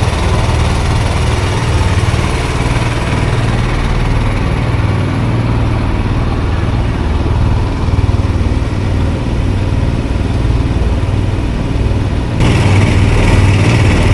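A boat's engine runs steadily with a deep rumble as the ferry crosses the river. Near the end it abruptly becomes louder and brighter.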